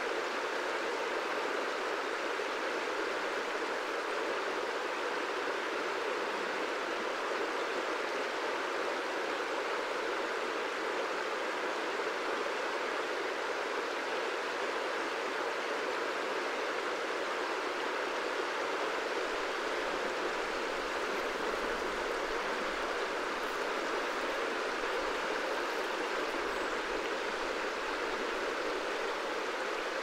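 Wide river flowing, a steady even rush of moving water with no breaks or changes.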